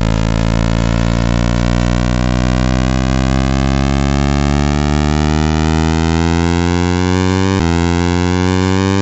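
Synthesized sonification of planetary motion: a dense cluster of many sustained electronic tones sounding together, all slowly rising in pitch, with a slight jump about three-quarters of the way through.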